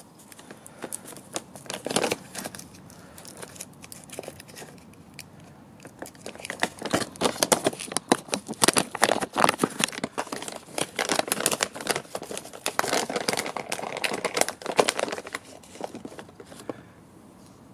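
A cat-treat pouch crinkling and rustling in the hand as it is worked open, in a dense run of crackles that is busiest in the middle and dies away near the end.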